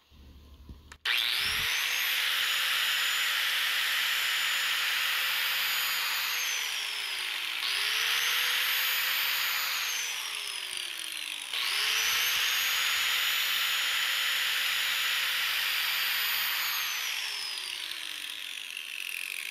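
Electric grinder run along the edge of a steel mower blade in a light pass to take off a razor-fine edge, leaving a flatter edge that resists gouging. The motor spins up about a second in with a rising whine and a grinding hiss, coasts down and restarts twice, and winds down near the end.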